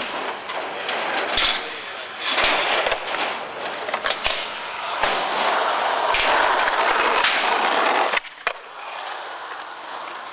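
Skateboard wheels rolling on concrete, with a few sharp clacks of the board in the first couple of seconds. The loud rolling sound cuts off suddenly about eight seconds in, and a quieter rolling follows.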